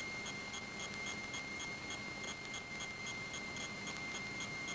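Quiet hiss of a cockpit intercom audio feed with a steady faint high whine and a soft regular ticking, about three ticks a second, in the line. The aircraft's engine is not heard.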